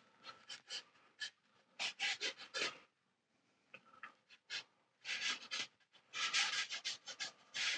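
Watercolour brush dragged dry across Baohong Master's Choice medium-texture paper in short vertical strokes, each stroke a brief scratchy rasp. The strokes come in quick clusters with a short pause in the middle.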